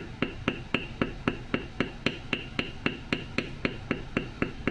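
Metal leather beveler stamp tapped with a mallet, steady sharp taps about four a second as it is walked along a line to bevel the edge of a tooled oak leaf.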